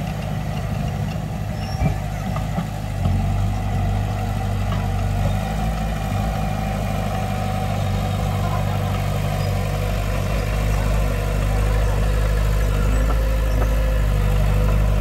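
Heavy diesel engine of earthmoving machinery running steadily, with a single knock about two seconds in and a slight rise in engine level about a second later.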